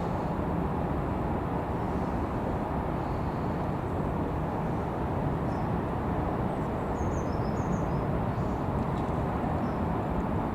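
Steady wind and riding noise on the microphone during a bike ride, with a few faint high chirps about seven seconds in.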